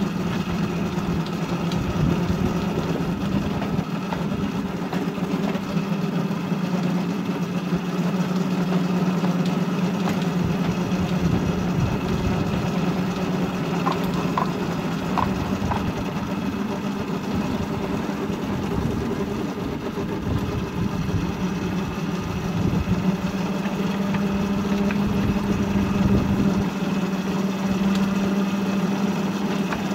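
Miniature railway shunter's engine running at a steady, unchanging pitch, heard close up from the driver's position, with a low rumble beneath it.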